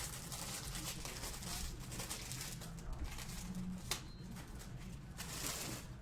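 Rustling and crinkling of packaging being handled, with a sharp click about four seconds in, over a steady low hum.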